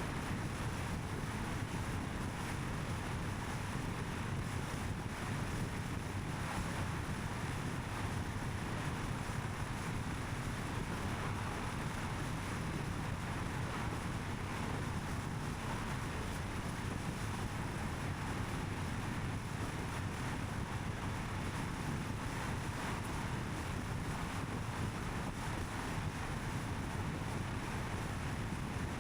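Steady road noise from a car driving at a constant pace: low tyre rumble mixed with wind rush, unchanging throughout.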